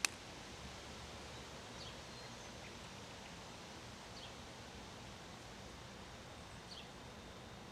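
Faint outdoor ambience of wind and rustling, with a small bird chirping briefly every couple of seconds. A sharp click at the very start.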